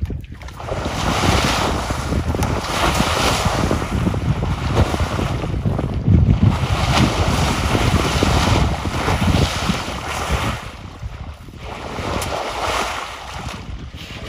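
African bush elephant splashing and throwing water in the shallows, in repeated surges of splashing. Wind rumbles on the microphone underneath.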